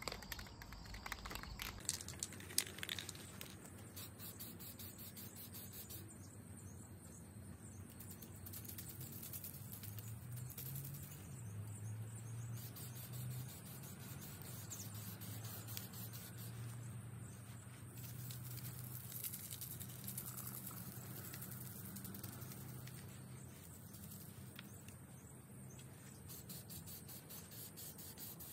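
Aerosol spray-paint can hissing in several bursts of a few seconds each, with a few sharp clicks near the start. Crickets chirp steadily behind it.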